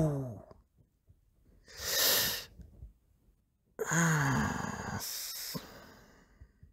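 A man's wordless groans and sighs of dismay. A groan falling in pitch fades out about half a second in. A sharp breathy exhale comes around two seconds in, and a second groan about four seconds in trails off into a long sigh.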